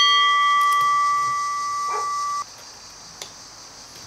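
Steel transmission part struck by a hand tool: a sharp clank, then a clear bell-like metallic ring that lasts about two and a half seconds and is stopped short. A light tick of tools on metal follows.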